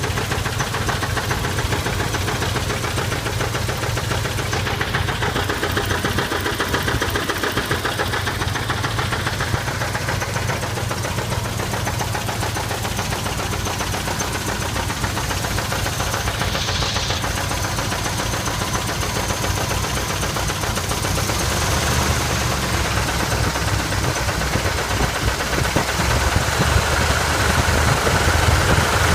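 1979 Chevy K5 Blazer's 350 V8 running at idle with a repeated knock, which the owner cannot place between a cracked or loose flexplate and a knock inside the engine. The engine gets somewhat louder over the last several seconds.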